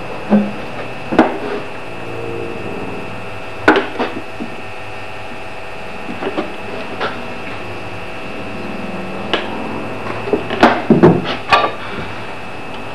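Scattered light knocks and taps from handling a bottle of engineer's ink and an axe clamped in a metal filing jig at a workbench, with a cluster of louder knocks near the end, over a steady background hum.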